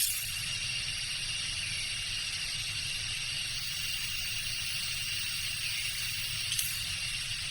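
Tropical jungle ambience: a steady, high insect drone with a constant shrill whine, over a low rumble. Two brief sharp ticks, one at the start and one about six and a half seconds in.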